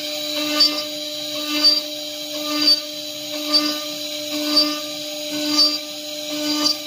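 Side drilling spindle of an AccTek AKM1530C CNC router running at a steady high pitch while it bores a row of holes into the side of a wooden beam, with a short burst of cutting noise about once a second as the bit plunges into the wood.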